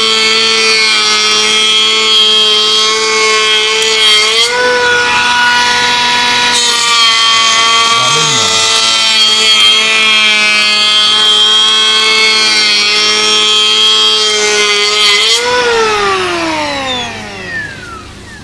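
Cordless 21V brushless electric planer running at full speed with a steady high whine as it takes a deep cut in oak, its pitch rising briefly at about four and a half seconds. A little after fifteen seconds the motor is released and winds down, the whine gliding steadily lower.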